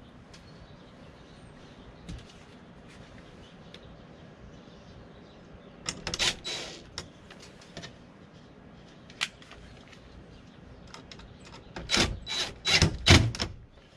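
Cordless DeWalt driver run in short bursts to drive screw terminals in a breaker panel: one burst about six seconds in, then several quick pulses near the end.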